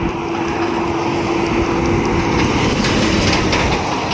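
Heavy container truck driving past close by, its engine and tyre noise growing louder as it draws near, with a steady low engine drone. Clicking and rattling come in during the second half as it passes alongside.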